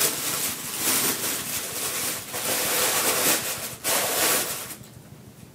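Packaging rustling and crinkling as it is handled, continuous with many small crackles for nearly five seconds before it stops.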